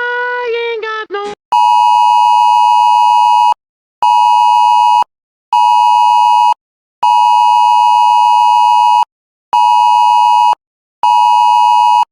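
Wireless Emergency Alert attention tone in the style of an iPhone alert: a loud, steady two-pitch beep near 1 kHz. It pulses in a long-short-short pattern, played twice: a two-second tone, then two one-second tones, with half-second gaps. Before the alert starts, a short bit of music dies away in the first second or so.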